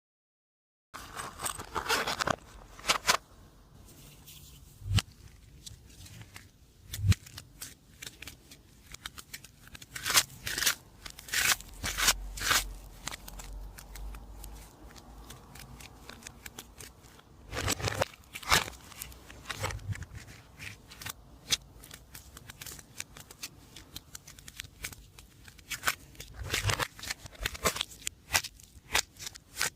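Slime being handled and mixed by hand: irregular sticky clicks and crackles, some in quick clusters, with quieter stretches between.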